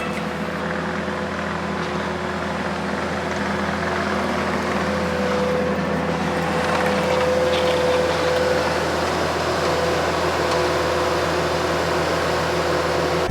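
Engine of a piece of heavy yard equipment running steadily under work, a constant drone with a held tone that grows a little louder partway through.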